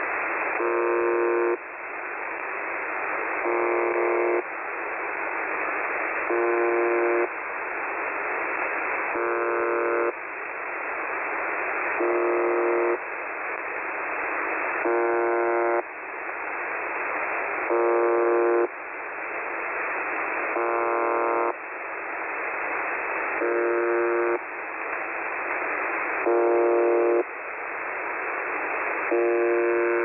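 The Russian shortwave station UVB-76, "The Buzzer", on 4625 kHz, heard through a web SDR receiver in upper sideband. A short, harsh buzz repeats about every two and three-quarter seconds, eleven times, with radio static hissing between the buzzes.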